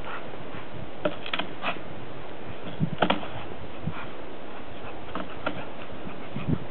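Steady hiss with scattered short clicks and crackles, a cluster about a second in and another about three seconds in: dogs scuffling over snow and fallen twigs, with no barking.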